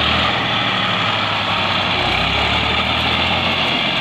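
Massey Ferguson tractor's diesel engine running steadily under load, straining to drag the tractor free while its ridger is sunk deep in the soil. Its low note strengthens about two seconds in.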